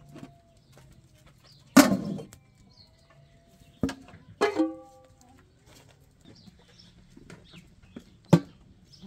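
Short farmyard animal calls: a loud one about two seconds in and another at about four and a half seconds, over a faint low steady hum, with a sharp click near the end.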